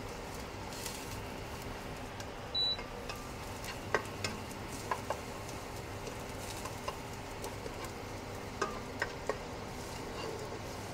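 Garlic, onion and ginger sautéing in oil in a pot, a steady sizzle stirred with a spatula, with scattered light taps and scrapes of the spatula against the pot through the second half. A faint steady hum runs underneath.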